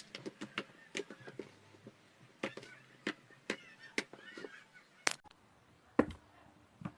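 Slime being squished and worked by hand: a quick run of sticky clicks and small wet pops, with a louder pop about five seconds in and another about six seconds in.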